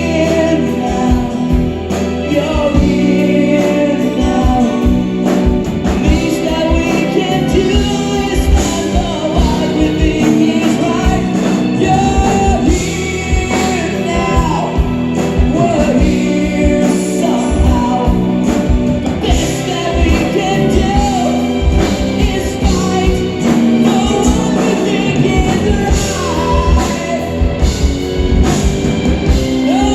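Progressive rock band playing live in a large hall: drums and bass under sustained chords and a wavering melodic lead line.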